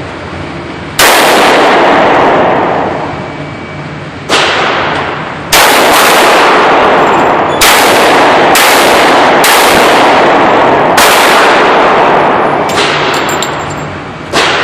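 Single gunshots fired one at a time at irregular intervals, about nine in all, each very loud and trailing off in a long echo.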